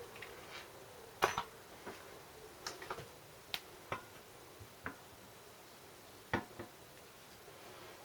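Scattered light clicks and taps of hand tools and small metal engine parts being handled during a small-engine teardown, the sharpest about a second in.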